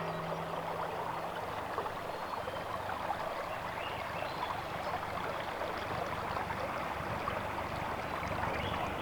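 Water rushing and splashing along a sailboat's hull as it sails.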